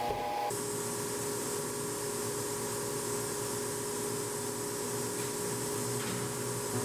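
Woodworking machinery running steadily in a cabinet shop: an even hiss with a steady mid-pitched tone, starting just after music cuts off.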